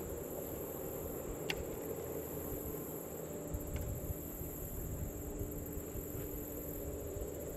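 Steady high-pitched insect drone over a low rumble of wind and water, broken by two short sharp clicks, about one and a half and four seconds in.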